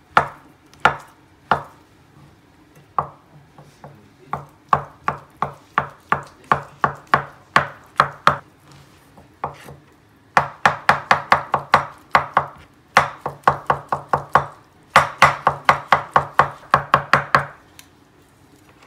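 Cleaver chopping tofu on a wooden cutting board. It starts with a few separate slicing strokes, then settles into steady chops about two a second, then quick runs of about five chops a second, and stops near the end.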